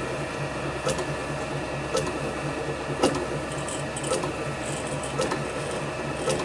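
Small bench lathe running at low speed while a 1/8 Whitworth hole is tapped: a steady motor hum with a quick pulse in it and a sharp click about once a second.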